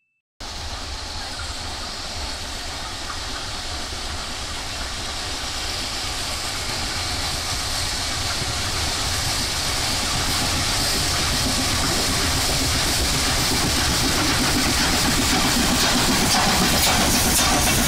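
Sri Lanka Railways Class B1A steam locomotive No. 251 approaching with its train, the running noise growing steadily louder as it nears. A few sharp clicks come near the end as it passes close.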